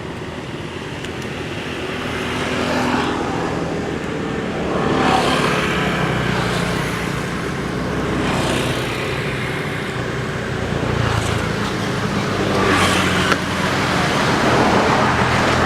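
Road traffic: a steady engine hum with several vehicles swelling past one after another.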